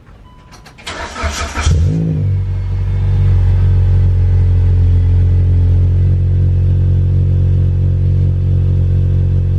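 Mitsubishi Lancer Evolution X's turbocharged 2.0-litre four-cylinder engine being started: the starter cranks briefly about a second in, the engine catches with a quick flare of revs, then settles into a loud, steady idle.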